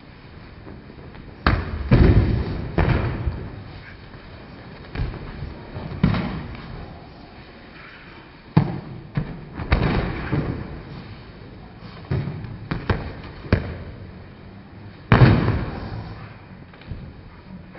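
Bodies repeatedly slapping and thudding onto gym training mats as aikido partners are thrown and take breakfalls: a dozen or more sharp, irregular impacts that echo in the hall, the loudest about fifteen seconds in.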